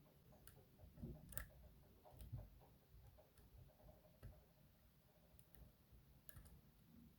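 Faint, irregular clicks and ticks of a dimple pick working the pins inside an ABUS D6X dimple lock.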